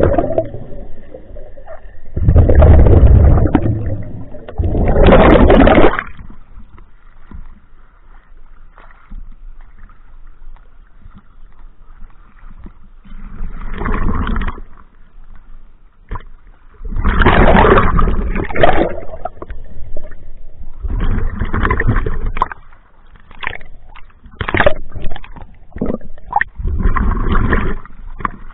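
Scuba regulator exhaust bubbles rushing past the camera underwater in three loud bursts a few seconds apart, one per exhaled breath. After a quieter stretch, from about 13 seconds on, waves slosh and splash over the camera housing at the surface in uneven bursts.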